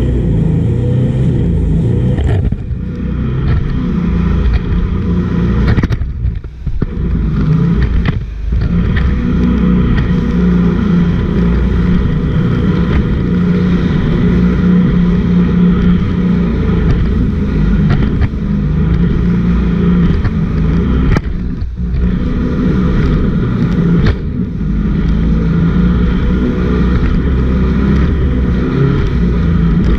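Jet boat engine running hard at speed, a loud steady drone that drops briefly several times as the throttle eases, with rushing air and water noise.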